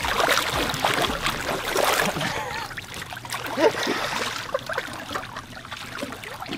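Swimming-pool water splashing and sloshing as a person surfaces and moves about in it, with water streaming and dripping off him, and a brief louder sound about three and a half seconds in.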